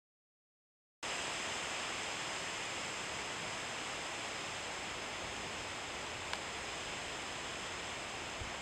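Steady rushing noise of wind through trees and leaves, starting suddenly about a second in after silence, with a single faint click past the middle.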